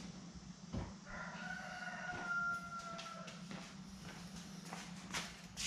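A rooster crowing once: one long call of about two seconds that sags slightly in pitch, over a steady low hum, with a few knocks near the start and near the end.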